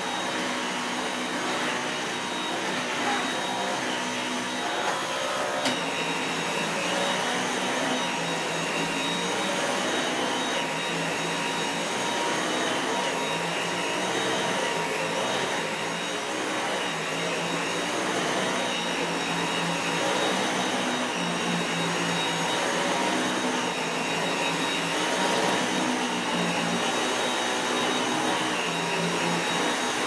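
Dyson V8 cordless stick vacuum running on standard suction as it is pushed over the floor: a steady rush of air with a high motor tone running through it.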